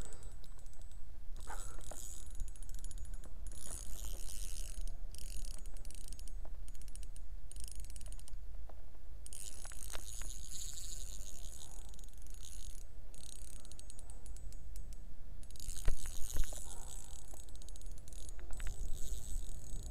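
Spinning reel on a light trout rod being wound in spurts, whirring and clicking, while a hooked fish is played. Wind rumbles on the microphone underneath.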